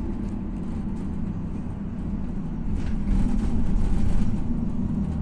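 Setra bus driving along the road, heard from inside the passenger cabin: a steady low rumble of engine and road noise that swells louder about three seconds in.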